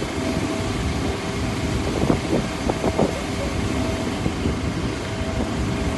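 Steady vehicle engine rumble with a faint steady hum, and a few short faint knocks about two to three seconds in.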